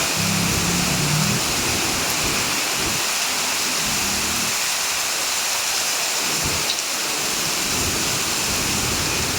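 Heavy rain falling steadily in a dense hiss, with brief low rumbles about a second in and again around four seconds in.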